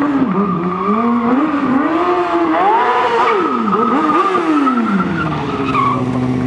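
Stunt motorcycle's engine revving up and down repeatedly during stunt riding; a little past five seconds in, the revs drop and hold at a steady note.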